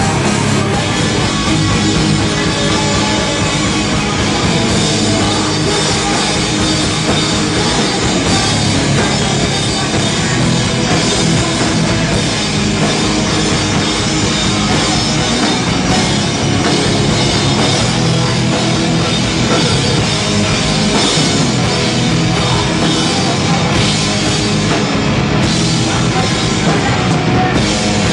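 Hardcore band playing live: loud, continuous rock music with electric guitars and a drum kit, without a break.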